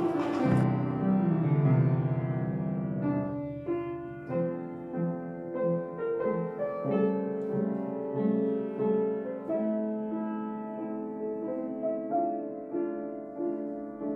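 Background music: a piano melody playing at a gentle, even pace, note following note.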